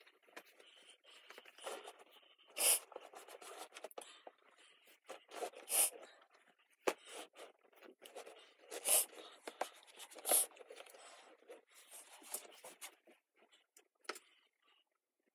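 Clothes rustling and scraping as they are handled and packed into a hard-shell suitcase, with about four louder swishes and one sharp knock midway.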